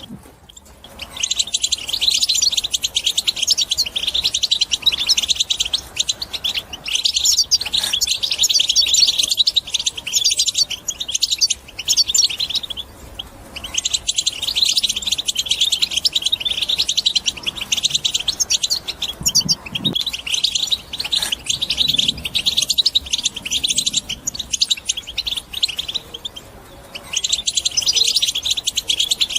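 European goldfinch singing its rapid, jingling twitter in long phrases, with brief pauses between them.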